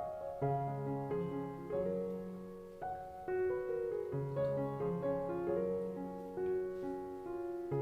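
Background piano music: a gentle melody of short notes over held low bass notes.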